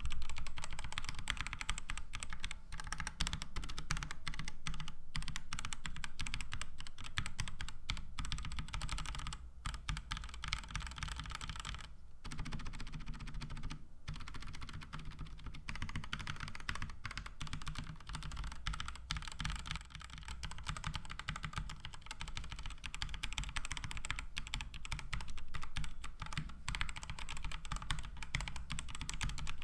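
Fast, continuous typing on a mechanical keyboard fitted with Outemu Silent White switches, a dense run of keystrokes broken by a few brief pauses.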